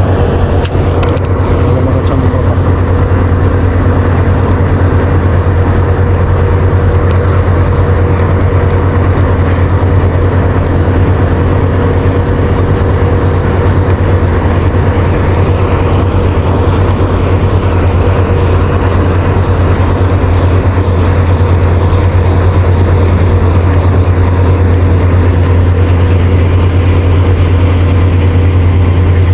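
A loud, steady low machine drone, like an engine or motor running without change, with faint steady higher hums above it.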